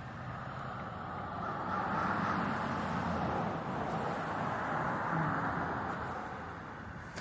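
A car driving past: road and tyre noise swells, peaks in the middle and fades away near the end.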